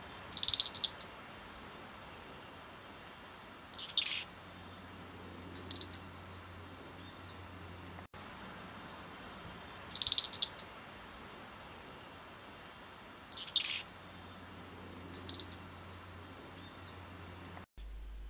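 European robin calling in short, high bursts, six of them a few seconds apart, over a faint steady hiss.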